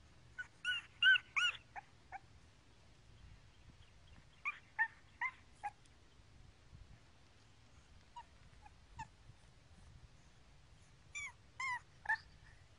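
English bulldog puppy whimpering: short, high-pitched whines in three clusters of several each, about a second in, around five seconds in and near the end, with a few fainter ones between.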